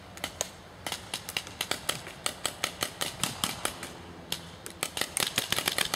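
Paintball markers firing in quick runs of sharp pops, several shots a second, thickest about a second in and again over the last two seconds.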